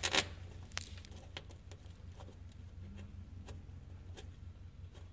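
Faint, irregular small clicks and taps of a nut being fiddled onto a bolt by hand under a car, over a steady low hum.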